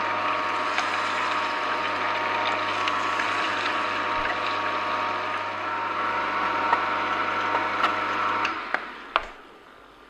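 Angel twin-gear stainless steel juicer running, its gears crushing apple pieces pushed down the chute, a steady motor hum with scattered ticks. The sound stops suddenly about a second and a half before the end, followed by a few sharp clicks.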